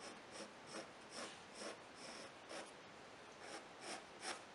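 Pencil lead scratching on textured drawing paper: a faint run of short strokes, about two a second, with a brief pause partway through, as the neck lines of a face are sketched.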